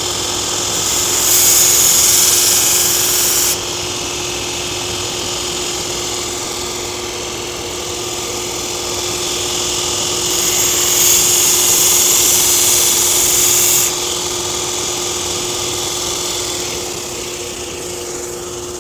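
Belt grinder running with a steady motor hum while a laminated steel nakiri blade is pressed to the moving abrasive belt twice, each pass giving about three seconds of loud, high grinding hiss that stops sharply when the blade is lifted. The passes are thinning the blade to turn its single scandi grind into a primary and secondary edge.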